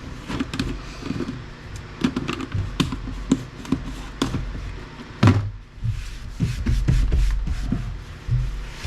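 Irregular clicks and knocks of small scrap parts and tools being handled on a workbench, with one louder knock about five seconds in, followed by a low rumble.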